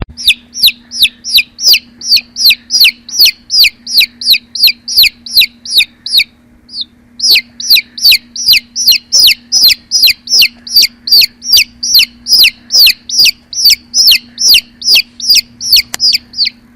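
Baby chicks peeping: a steady run of high, downward-sliding peeps, about two or three a second, with a pause of about a second midway.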